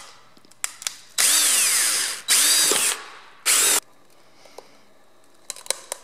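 Electric drill running in three short bursts, boring a hole through a plastic bottle cap; its pitch falls during the first burst and rises then falls in the second. A few light plastic clicks follow near the end as the hose is worked into the hole.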